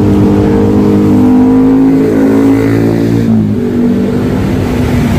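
Motor vehicle engine running loud and close, a steady pitched hum whose pitch slides lower after about two and a half seconds.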